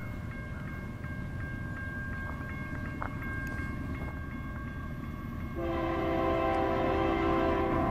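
Approaching diesel freight train rumbling in the distance, then the lead locomotive, a GE AC44CWCTE, sounds its air horn in one long blast starting about two-thirds of the way in.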